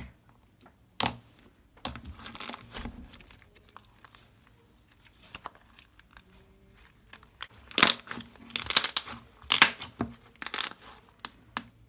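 Glossy slime squished, poked and stretched by hand, giving sticky crackling clicks and pops. They are sparse at first, faint for a few seconds, then come thick and loud for the last few seconds.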